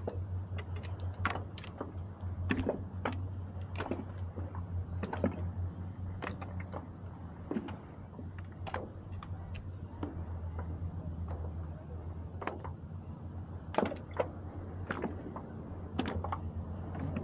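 Irregular sharp clicks and knocks, about one a second, from a landing net and fishing rod being handled against a plastic fishing kayak, over a steady low hum.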